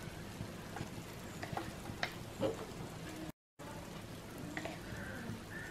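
Chilli and coriander powder frying gently in shallow oil in a nonstick pan: a faint, steady sizzle with a few small pops, cut by a moment of silence about three seconds in.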